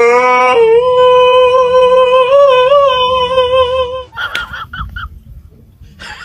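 Tabby cat's long, drawn-out meow, held at one nearly steady pitch for about four seconds and wavering slightly midway, then breaking off.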